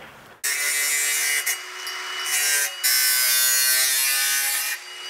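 Angle grinder cutting into a pressed-steel shifter tunnel piece held in a vise. It starts about half a second in, eases briefly in the middle, comes back under full load, then is lifted off near the end and winds down with a falling whine.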